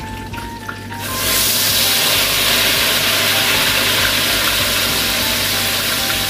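Beaten egg frying in hot oil in a wok: a loud, steady sizzle that starts suddenly about a second in.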